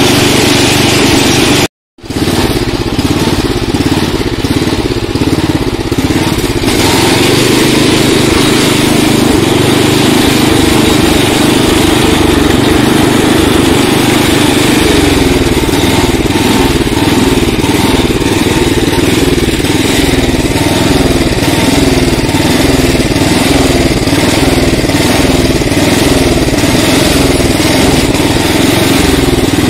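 Riding lawn tractor's small gasoline engine, which the owner thinks is a Tecumseh, running steadily as the tractor is driven over grass. The sound cuts out for an instant about two seconds in.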